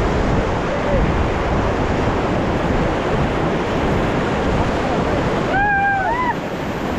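Rushing water of the Ganges rapids around a raft, with wind buffeting the microphone. Near the end a person gives a brief high call in two parts.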